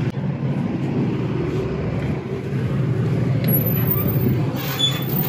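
Steady low rumble and hum of a vehicle on the move.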